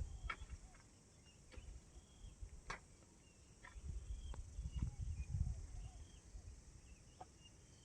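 Faint outdoor ambience between calls: patches of low rumble, scattered short ticks, and faint high chirps of small birds, with no clear dove coo.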